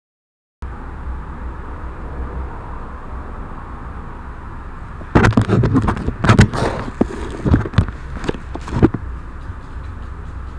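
A steady low hum cuts in after about half a second. From about five seconds in comes a run of loud, irregular knocks and bumps lasting about four seconds.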